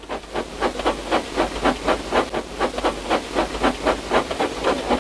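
Steam-locomotive-style chuffing from a toy train, about four chuffs a second, each a hissy puff, over a faint steady low hum.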